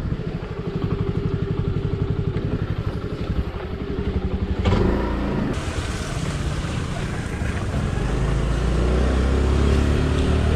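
Honda Activa scooter's single-cylinder four-stroke engine running with an even, rapid low pulse at first. About halfway through it steadies into a stronger hum as the scooter picks up speed, with a hiss of wind and road noise rising over it.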